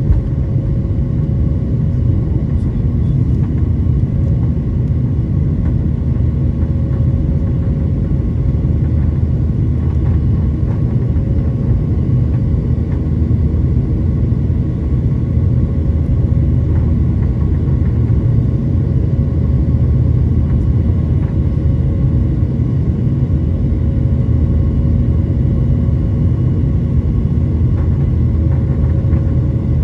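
Boeing 737-900ER's CFM56-7B jet engines and airflow: a steady low rumble with a faint even hum of a few tones over it, unchanging throughout.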